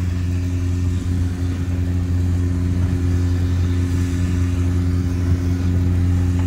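An engine running at a steady speed: a low, even drone that holds the same pitch throughout.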